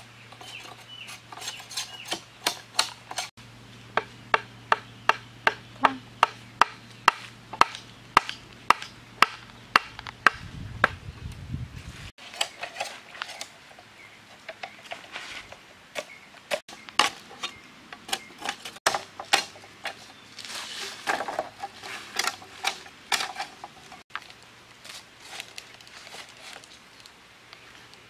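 A curved knife striking and chopping into a green bamboo pole to split it into strips: a long run of sharp strikes about two a second, with a few short breaks, thinning out near the end.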